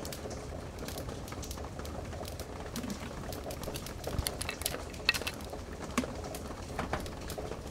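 Fire crackling in a fireplace: irregular pops and snaps over a low, steady rumble.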